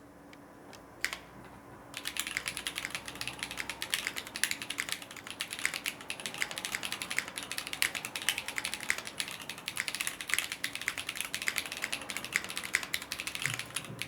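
Typing on a mechanical keyboard fitted with GMK doubleshot ABS keycaps in Cherry profile. A couple of lone key clicks are followed, about two seconds in, by a fast, steady clatter of keystrokes.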